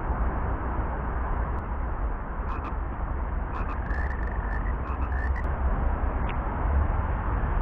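A frog croaking in short rapid series of clicky pulses, mostly in the middle, over a steady low rumble and hiss of background noise.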